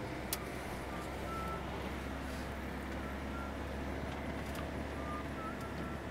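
Steady in-cabin rumble of a vehicle driving along a road, engine and tyre noise, with a single sharp click about a third of a second in.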